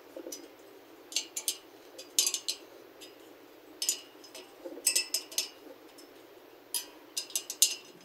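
Light metallic clinks and ticks in small clusters, about six times, from a spoke wrench working the nipples of a dirt bike wheel's stainless steel spokes as each is tightened half a turn.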